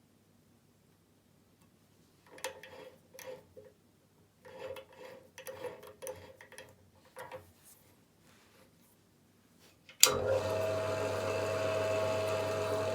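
Brief rubbing and knocking of handled parts and tools, then an electric drill motor is switched on about ten seconds in and runs steadily with a low hum and a steady whine, ready to drill holes in an aluminium rod.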